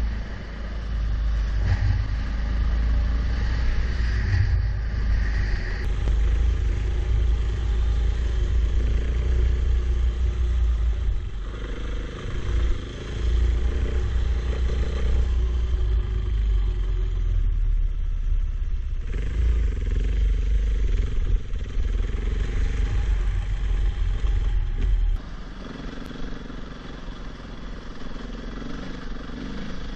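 Enduro motorcycle running under way, its engine note rising and falling, under a heavy low rumble. About 25 seconds in, the low rumble drops away suddenly and the sound gets quieter.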